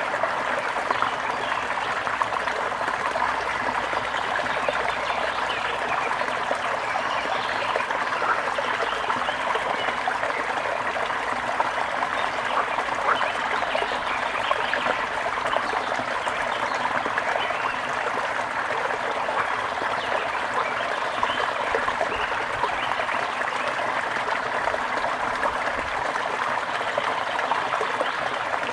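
Shallow stream trickling and babbling over stones, a steady, unbroken sound throughout.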